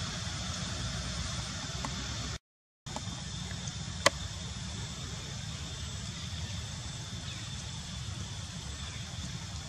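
Steady background noise, a low rumble under a hiss, with no animal calls. It cuts out completely for about half a second a little over two seconds in, and there is a single sharp click about four seconds in.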